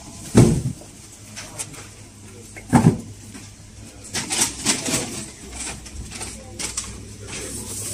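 Two dull thumps about two and a half seconds apart, then a flurry of light clicks and rustles, over a steady low hum.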